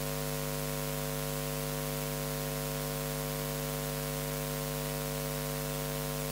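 Steady electrical mains hum with a stack of buzzing overtones and a hiss, from the public-address microphone and sound system while no one speaks into it.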